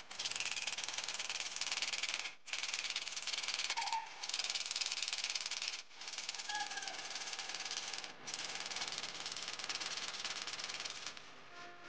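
Sandpaper rubbed quickly back and forth by hand over a metal plumb bob, a dense scratchy rasp. It comes in four runs of two to three seconds with short breaks between them and stops shortly before the end.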